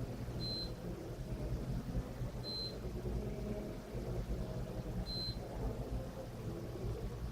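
Three short high electronic beeps about two to two and a half seconds apart, over a steady low rumble.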